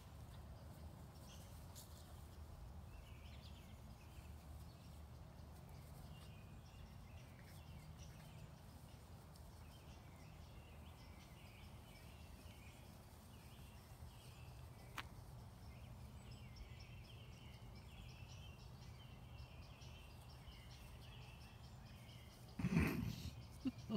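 Faint outdoor ambience: small birds chirping in the distance over a low wind rumble, with one short louder noise near the end.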